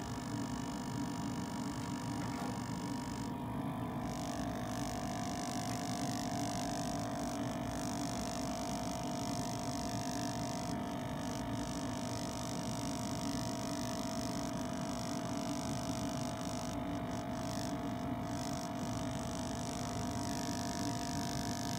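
Steady electric hum of the PowerFlea prototype paddle stirrer's motor running at speed, emulsifying olive oil and water in the flask. Its tone shifts slightly about three and a half seconds in.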